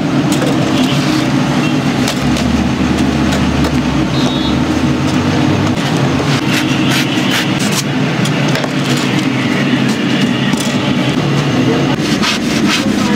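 A long knife slicing through a stack of folded newspaper, a few short strokes at a time, over a loud, steady background hum.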